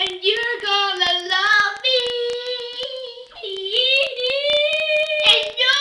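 A child singing in a drawn-out, exaggerated way, holding two long notes of over a second each in the middle, with scattered knocks and clicks alongside.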